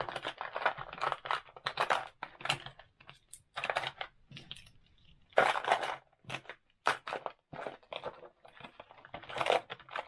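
Steel crimp dies and plastic key tags clattering as they are placed into the compartments of a clear plastic organiser box: irregular clicks and knocks, the loudest clatter about five and a half seconds in.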